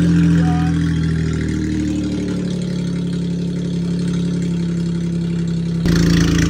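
Suzuki Bolan van's loud-exhaust engine idling steadily with an even, deep note, which shifts slightly about two and a half seconds in. Near the end the sound suddenly becomes louder and fuller.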